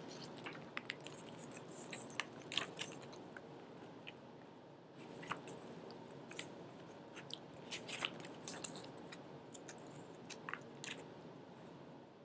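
Paper flyers being slid back into a plastic Blu-ray case: faint, scattered crinkles and small clicks of paper and plastic being handled.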